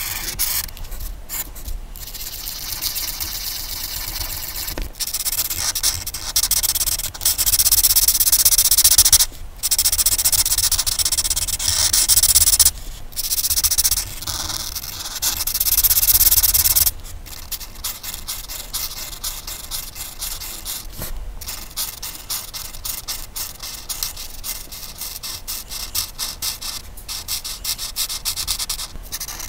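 Colouring tool scratching back and forth across paper while a page is coloured in. There are long, loud passes with brief pauses through the middle, then quicker, lighter short strokes for the rest.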